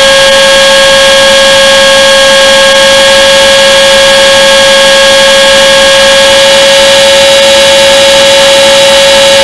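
Align T-Rex 450 electric RC helicopter in flight, heard from on board: a loud, steady high whine of its electric motor and drive gears, holding one pitch throughout, over a hiss of rotor wash.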